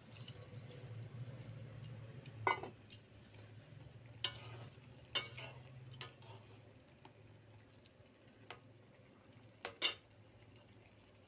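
A spatula stirring fish curry in a metal pan, knocking and scraping against the pan about eight times, with a steady low hum underneath.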